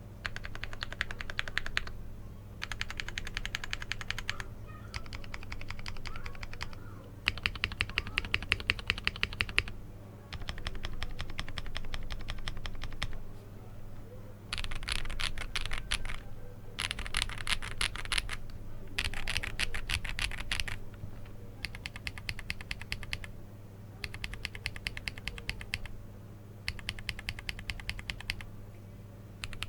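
Mechanical keyboard typing on a Glorious GMMK Pro with a POM plate and Glorious Panda tactile switches. The keys are typed in quick runs of one and a half to three seconds, separated by short pauses.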